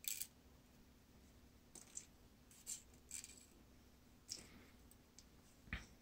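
A handful of faint, irregular clicks of steel tweezers and small pin springs being picked out of a lock cylinder's plug and set into a wooden pin tray.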